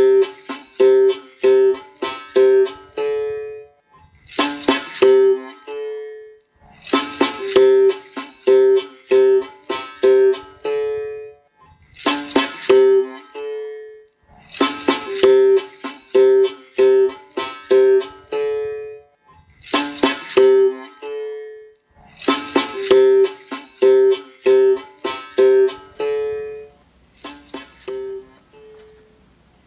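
Instrumental music on a plucked string instrument. A short phrase repeats about every four seconds, each time opening with a sharp struck chord and followed by a run of quick repeated notes on one pitch. It thins to sparse single notes near the end.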